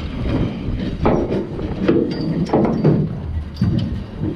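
Deck handling noise as a small pink snapper is hauled over the boat's rail and unhooked by hand: irregular knocks and rustles over steady wind and boat noise.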